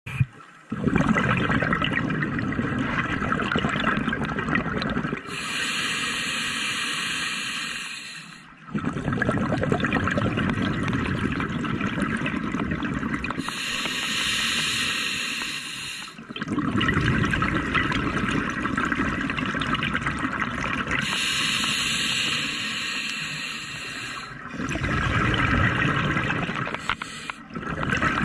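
Scuba diver breathing through a regulator underwater. A hissing inhale of about three seconds alternates with a longer, bubbling exhale, about four breaths in all.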